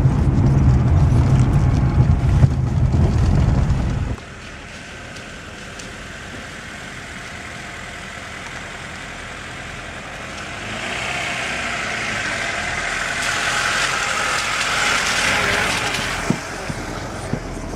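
Car on the move: loud low road and engine rumble that cuts off abruptly about four seconds in, followed by a quieter steady hiss that swells from about ten seconds in and fades near the end.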